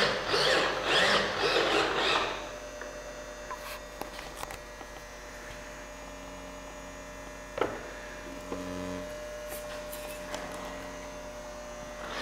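Rhythmic rasping strokes, about two a second, for the first two seconds, then a steady electrical mains hum with a single sharp click midway and a brief low tone just after it.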